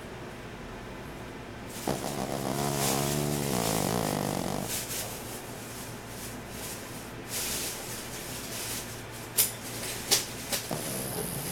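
A dog snoring: one long pitched snore about two seconds in, lasting around three seconds, over a steady low hum. A few sharp clicks follow near the end.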